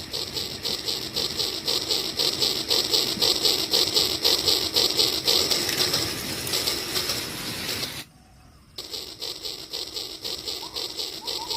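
Battery-powered toy train running on its track, its motor and gears whirring with a fast, even clicking. The sound drops out for under a second about eight seconds in, then carries on.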